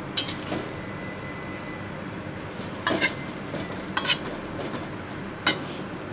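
Spatula scraping and clanking against a wok as udon noodles and vegetables are tossed in a stir-fry, with a few sharp clanks spaced about a second apart over a steady hiss.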